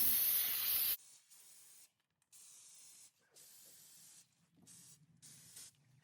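Aerosol brake cleaner spraying: a loud hiss for about the first second, then several shorter, fainter bursts.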